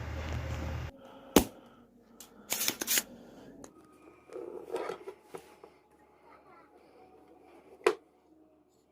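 Small tools clicking and tapping on an amplifier circuit board while transistors are being removed, with a sharp click about a second and a half in and another near the end. A low steady hum cuts off about a second in.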